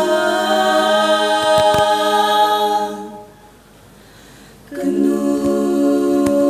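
Female a cappella vocal group of seven singing long held chords in close harmony. The first chord fades out about three seconds in, and after a short breath the voices come in together on a new chord almost five seconds in and hold it.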